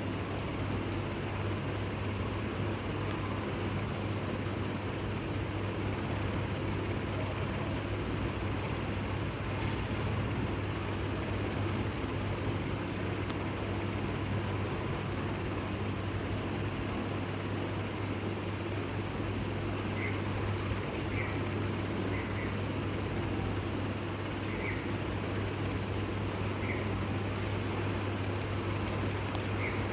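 Steady low hum under an even background noise, with a few faint short chirps a second or two apart in the second half.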